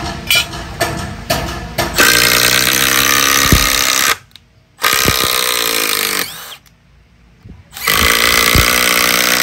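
Milwaukee M12 brushless impact driver driving long wood screws into a wooden block, in three bursts of about two seconds each: rapid hammering impacts over the motor's whine. A few light clicks come before the first burst.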